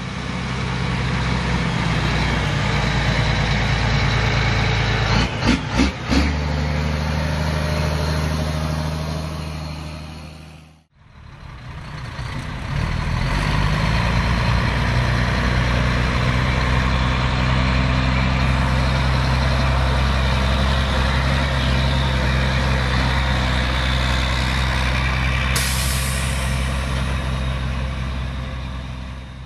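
Vintage Mack truck's diesel engine running steadily, fading out and back in about eleven seconds in. A few sharp knocks come about five to six seconds in, and a loud hiss of air starts near the end.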